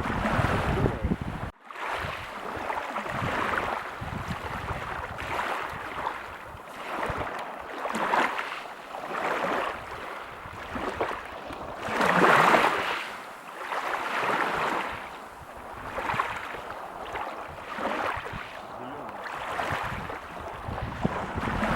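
Ocean surf, waves breaking on a beach: a hissing rush that swells and fades every second or two, loudest about halfway through. The sound cuts out for an instant about a second and a half in.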